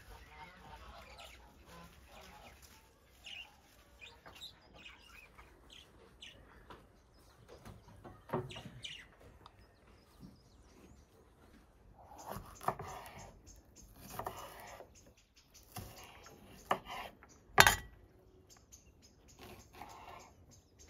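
Small birds chirping, then a knife cutting vegetables on a wooden board in a series of separate knocks, the loudest a sharp knock in the second half.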